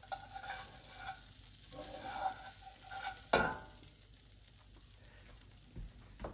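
Spatula scraping and scooping egg in a frying pan with a light sizzle, and a sharp knock about three seconds in.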